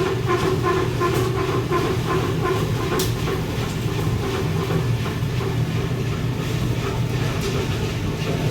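Grain pit auger and elevator leg running and moving grain, driven by a newly fitted 480-volt three-phase electric motor: a steady mechanical drone with a low hum and a rhythmic clatter about three times a second that becomes less distinct after the first few seconds.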